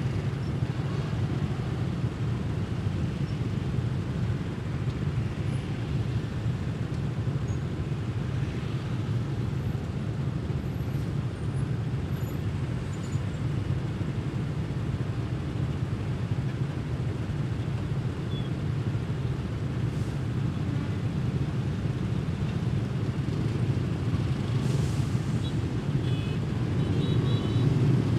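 Motorbike and car engines idling in stopped city traffic, a steady low hum of street noise. Near the end it grows slightly louder and a few faint short high beeps sound.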